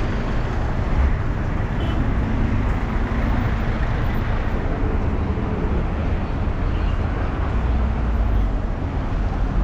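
Busy street noise dominated by a steady low rumble of road traffic, with no single sound standing out.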